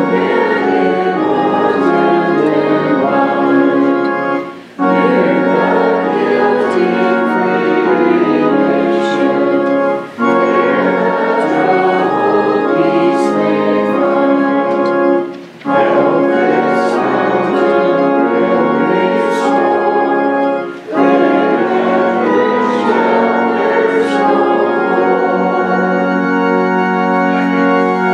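A congregation singing a hymn with organ accompaniment, in phrases of about five seconds with a short break between each.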